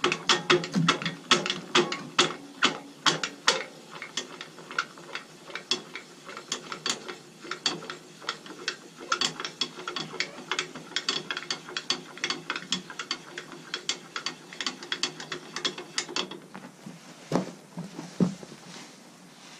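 Harrow angle-of-attack adjustment screw being cranked by its handle, a long run of rapid, regular ratcheting clicks, about three or four a second, as the harrow teeth are tilted toward their steepest angle. The clicking stops about sixteen seconds in and is followed by a couple of separate knocks.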